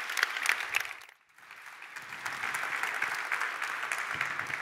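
Audience applauding, a dense patter of many hands clapping that breaks off briefly about a second in and then picks up again, steady to the end.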